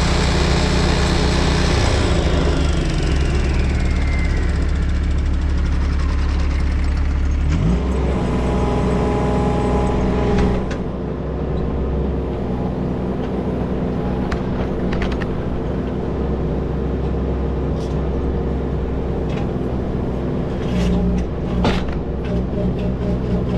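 Engine-driven concrete saw: the hiss of cutting fades and the blade spins down with a falling whine over a few seconds while a low engine note runs under it. About eight seconds in, the engine note shifts and settles into a steady run, with a few sharp knocks near the end.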